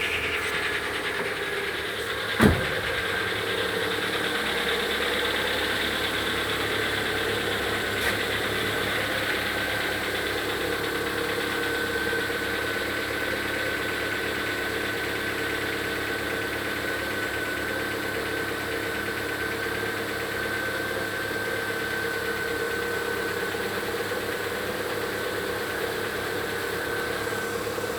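Lada Vesta engine idling steadily just after a cold start, with the cold-engine knock that new pistons and a replaced piston and connecting-rod group have not cured. A single loud thump about two and a half seconds in.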